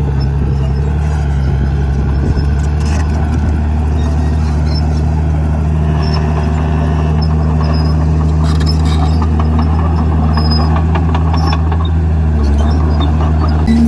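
Komatsu D51PX crawler bulldozer's diesel engine running steadily, with a light rattling clatter joining about six seconds in.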